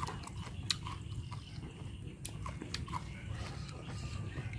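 Close chewing of a crunchy raw vegetable, with scattered crisp crunches over a low steady rumble.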